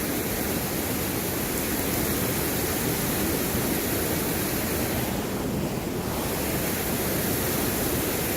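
Steady rush of a strong water current, an even noise with no break that thins briefly in the highs about five seconds in.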